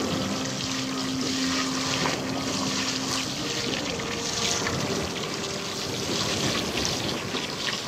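Water trickling and splashing as manatees drink at a dock, with a faint steady low hum for about the first three seconds.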